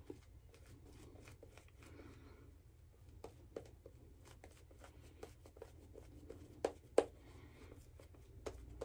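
Shaving brush swirled through shaving-soap lather on the face: faint, scratchy, crackling brush strokes with many small clicks and pops, two of them louder about two-thirds of the way through.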